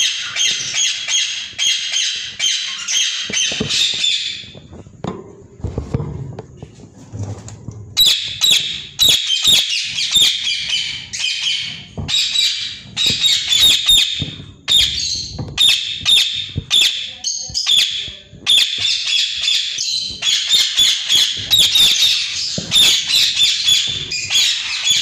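Yellow (lutino) Indian ringneck parakeets squawking in fast trains of harsh, repeated calls. The calls stop for about four seconds near the start, when only low knocks and rustles are heard.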